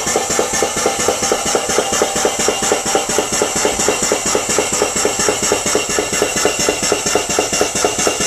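Drader Injectiweld extrusion welder running: its motor drives HDPE welding rod through the heated tip as a bead is laid. A loud, steady whirr with a fast, even pulsing.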